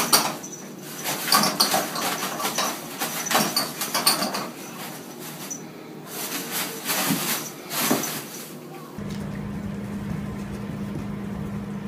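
Kitten rustling and crinkling loose toilet paper, a quick irregular run of paper noises and scratches. About nine seconds in this gives way to a steady low hum.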